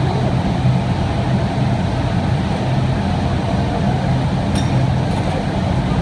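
Steady low roar and hum of a glassblowing hot shop's furnaces and blowers running.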